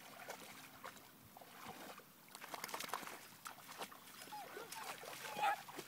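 Rhodesian Ridgeback dog whining faintly in a few short gliding whimpers, most of them in the second half, over light clicking and rustling.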